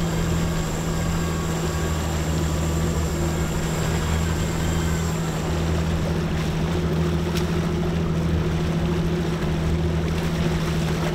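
Evinrude outboard motor running steadily, a low, even hum with wind and water wash over it.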